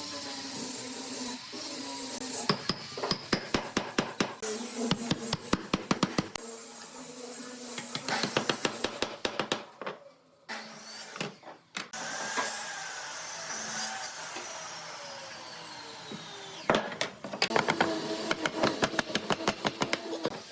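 Rapid hammering on wood, about five or six sharp strikes a second, in three runs with pauses between them.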